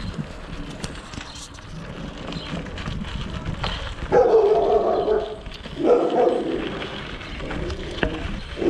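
A dog barking loudly in a few bouts: the first about four seconds in, a second just after, and another near the end.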